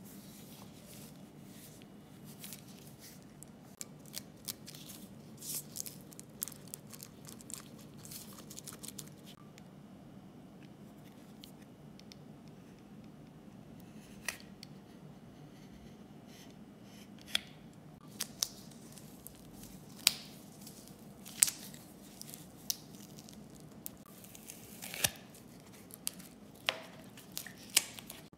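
Old black tape being peeled and torn off a cleaver's wooden handle: soft crackling at first, then a series of separate sharp snaps as the tape pulls free, over a faint steady low hum.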